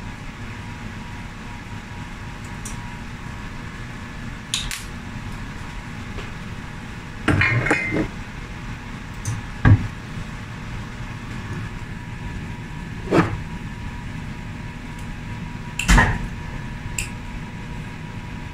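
Scattered clinks and knocks of kitchenware at a stove, about five in all, the loudest about ten and sixteen seconds in, over a steady background hum.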